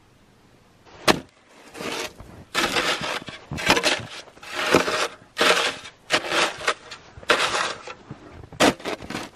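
Snow shovel chopping and scraping into a hard, frozen snowbank. A sharp knock comes about a second in, then a run of about eight crunching scrapes, with a couple of sharp knocks near the end.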